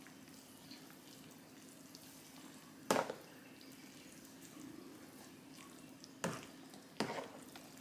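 A metal spoon stirring a thick, wet dressing mixture of shredded chicken in a roasting pan, with faint wet squelching and three sharp knocks of the spoon against the pan: one about three seconds in and two near the end. A faint steady hum runs underneath.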